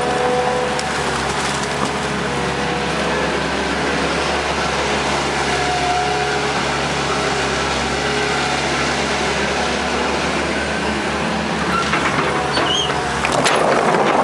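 Hitachi EX120 excavator's diesel engine running under load while it works its arm and swings, with a steady hydraulic whine over the engine. A few clanks near the end as the bucket comes back down to the mud.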